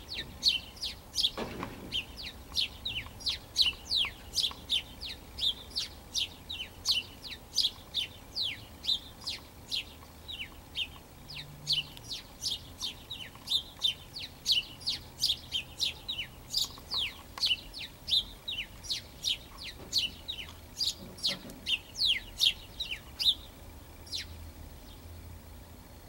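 House sparrow chirping over and over, short falling chirps at about two a second, stopping near the end.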